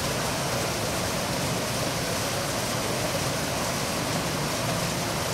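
Steady rushing background noise, even and unchanging, with no distinct events.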